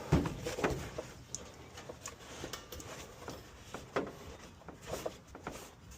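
Scattered light clicks and knocks of tools and fittings being handled and rummaged through, with a louder knock at the start.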